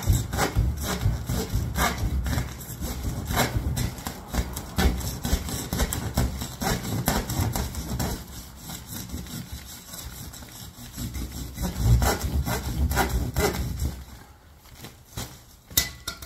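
Hand saw sawing through a rolled fiberglass insulation batt in steady back-and-forth strokes, a rough rasping rub with dull thumps, fading to a few weaker strokes near the end.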